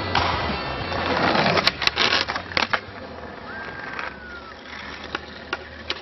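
Skateboard wheels rolling on concrete, then a quick run of sharp board clacks and impacts about two seconds in, followed by a few scattered lighter clicks.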